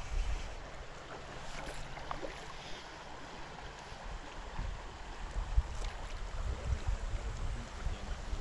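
Steady rush of a shallow river, with wind gusting against the microphone in uneven low rumbles.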